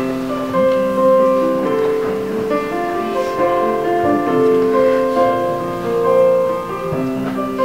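Piano music playing, held notes changing every half second or so.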